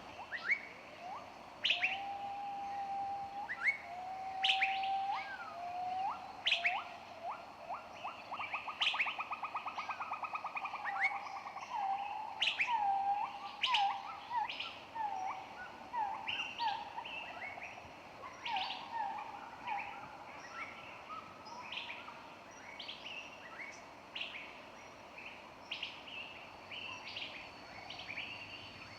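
Several wild birds singing and calling: sharp high chirps throughout, and a lower whistled song with long held notes, a rapid trill about eight seconds in, and a run of short slurred notes.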